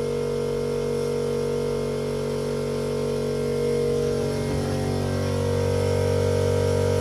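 Steady mechanical hum made of several steady tones. A brief falling glide in pitch comes about four to five seconds in, and the hum grows slightly louder after it.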